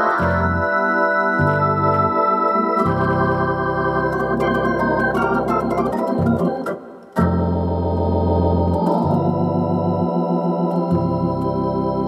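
Yamaha PSR-750 keyboard playing a Hammond B-3 organ voice: sustained organ chords over low bass notes, played from a left-hand split. The sound drops away briefly about seven seconds in, then the chords resume.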